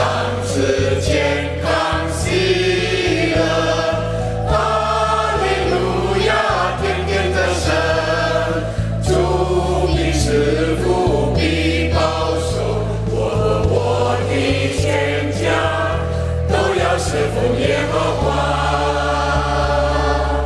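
Mixed choir of men, women and children singing a hymn in Mandarin, over instrumental accompaniment with a steady bass line.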